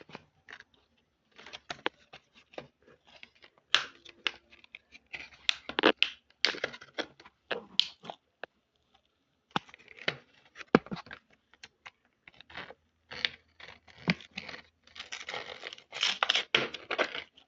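Toothbrush packaging being torn and crinkled open by hand: irregular rips, crackles and scratches with short pauses, busiest near the end.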